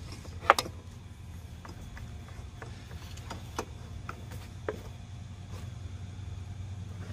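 Scattered light clicks and taps of hands working on a mower engine's spin-on oil filter, the sharpest about half a second in, over a steady low hum.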